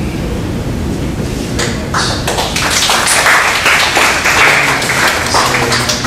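Audience applause: many hands clapping, starting about a second and a half in, building, then easing near the end, over a low steady room hum.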